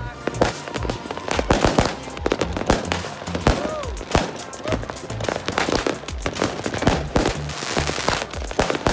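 Fireworks going off close by: a fast, irregular string of pops and bangs with crackling as rockets are launched.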